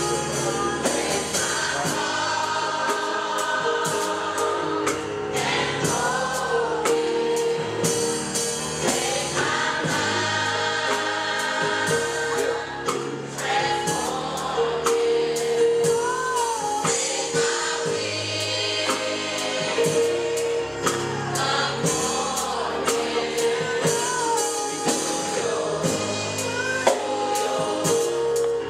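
Youth choir singing a gospel song, backed by a drum kit with steady cymbal and drum hits.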